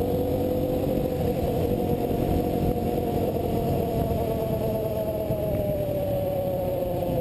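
Engine of a rebuilt Shineray 200 running steadily, its pitch sagging a little over the last two seconds before the sound cuts off abruptly.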